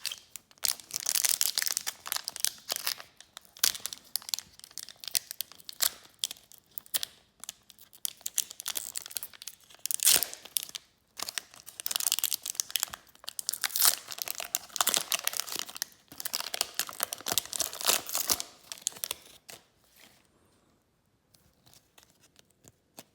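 Foil wrapper of a hockey card pack being torn open and crinkled in the hands: a dense run of irregular crackling and tearing that dies away about three quarters of the way through.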